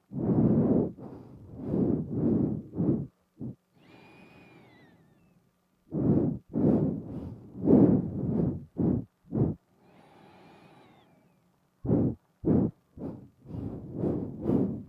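Nose breathing blown straight onto a binaural microphone: quick, short puffs of breath in three clusters, with quieter pauses of a couple of seconds between them.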